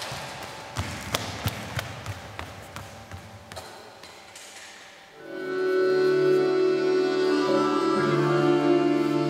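A series of sharp taps, about three a second, growing fainter over the first few seconds; then, about five seconds in, a live accordion chord swells in and is held steadily.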